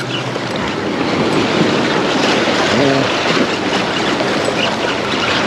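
Steady rushing wash of wind and water noise.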